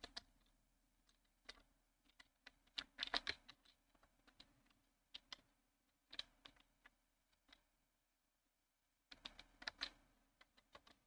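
Faint, sparse clicking of computer keyboard keys, in small flurries about three seconds in, around six seconds and again near the end.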